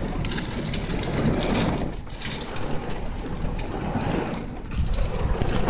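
Heavy wind-driven rain pelting the car's windows and body, heard from inside the cabin, with gusts of wind against the car, rising and easing.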